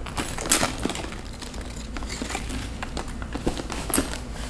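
Rustling and a few light clicks as a leather shoulder bag with a metal chain strap is slung onto a shoulder and adjusted, with the sharpest clicks about half a second in and near the end.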